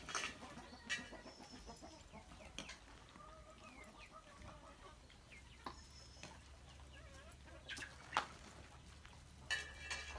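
Chickens clucking faintly, with scattered sharp clicks and knocks, the loudest a little after eight seconds in.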